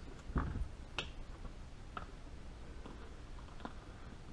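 A rifle being handled in a padded gun cradle: a dull knock about half a second in, a sharper click about a second later, then a few light taps.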